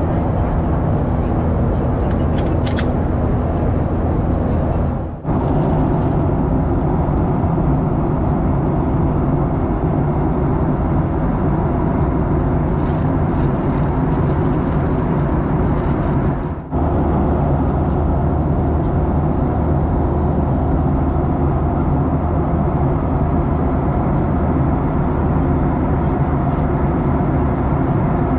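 Steady jet airliner cabin noise, the low drone of the engines and the rush of air, inside a TUIfly Boeing 737 in flight. It drops out for a moment twice, about five and seventeen seconds in.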